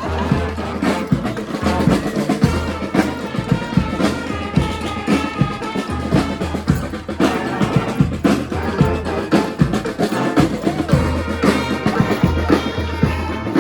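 Brass street band playing live: horns carry the melody over a steady drum beat.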